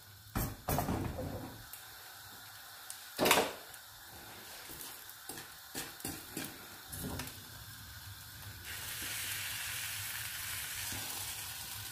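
Egg and diced potato frittata sizzling in a nonstick frying pan, while a fork scrapes and taps round the pan's edge and the pan is shifted on the gas hob's grate, giving a few sharp knocks, the loudest about three seconds in. The sizzle grows louder a little past halfway.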